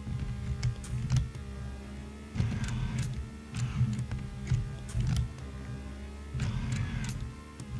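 A fischertechnik Rubik's Cube solving machine working in repeated short bursts of motor whirring with sharp clicks, its base plate, gripper and pneumatic cylinder turning and tipping the cube, over steady background music.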